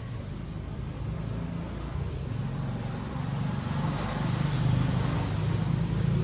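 Potter's wheel motor running, a steady low hum with hiss that grows louder about three seconds in.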